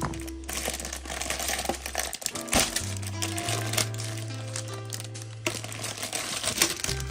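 Background music with held bass notes, over the crinkling and rustling of plastic packaging being handled as toy pieces are unwrapped.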